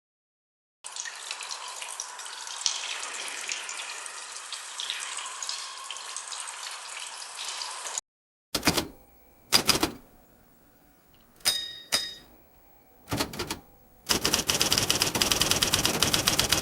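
A sequence of AI-generated sound effects: about seven seconds of steady crackling hiss that stops abruptly, then four short, sharp, separate sounds a second or two apart, then a quick, even run of clicks like typing.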